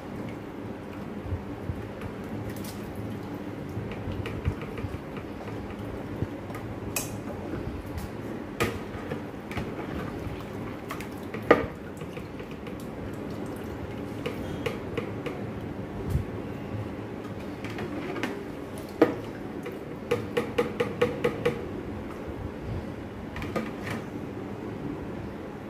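Metal mesh strainer scooping wet meat pieces out of a plastic bucket of water and tipping them into a frying pan: scattered clinks and knocks of metal on plastic and pan, with a quick run of taps about twenty seconds in, over a steady low hum.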